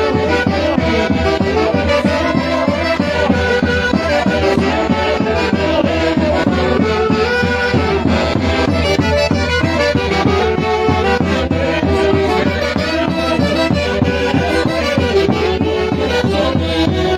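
An Andean festival orchestra playing santiago music: wind melody lines over a steady beat, with no singing.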